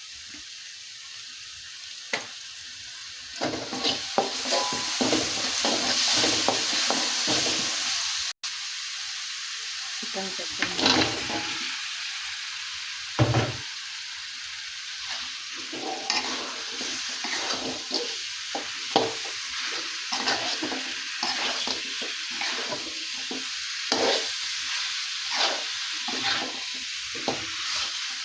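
Chicken feet in spicy seasoning sizzling in a pan while being stirred, with frequent short scrapes and taps of a utensil against the pan. The sizzle is loudest for a few seconds in the first third.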